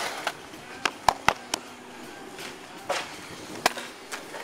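Skateboard in a concrete bowl: a scatter of sharp clacks and knocks from the board and trucks, several in quick succession about a second in and a few more spread after.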